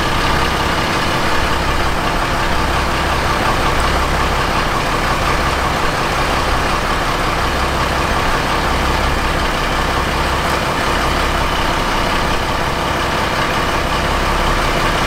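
A boat engine idling steadily: a constant drone with a low hum that throbs slowly, about once a second.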